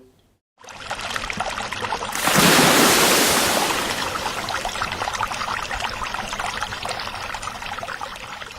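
Food frying in hot oil in a wok, a dense crackling sizzle. It flares up sharply about two seconds in and then slowly dies down.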